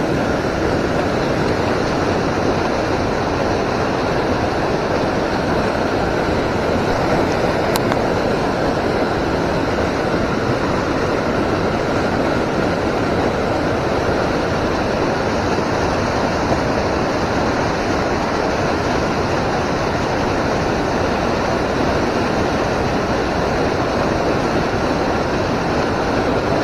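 Loud, steady rush of fast-flowing river water.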